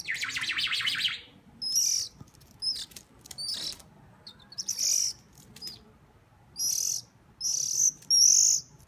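Hungry bird begging for food: a fast rattling call in the first second, then a string of short, high chirps about a second apart.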